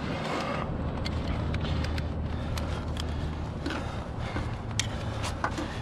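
A steady low rumble, with a few sharp metallic clicks near the end as a climber's carabiner and hook are clipped onto the aerial ladder's rungs to lock in.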